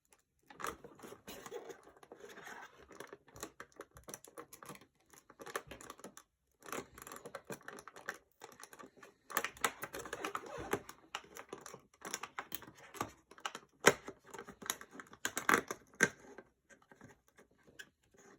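Cardboard and plastic packaging of a toy advent calendar being torn open and handled: repeated tearing, crinkling and scattered clicks and taps, with one sharper click about three-quarters of the way through.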